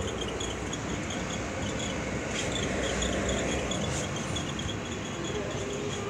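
Homemade 12-volt DC washing machine running: a steady whirring noise from its DC motor and tub, with a faint, rapid high ticking over it.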